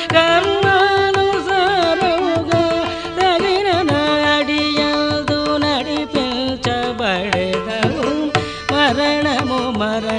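Carnatic devotional song in raga Kambhoji, Adi tala: a solo voice sings ornamented, sliding melodic lines over hand-drum accompaniment.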